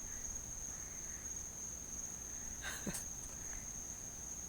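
Crickets trilling in one steady, unbroken high tone, with a brief soft noise about three seconds in.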